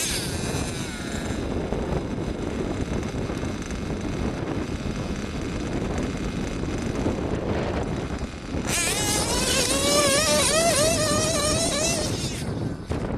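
Modified JL21 big-block .21 nitro engine of an OFNA Hyper 10SC RC short-course truck revving unevenly under throttle. From about nine seconds in, a high-pitched engine whine rises and falls quickly for about three seconds.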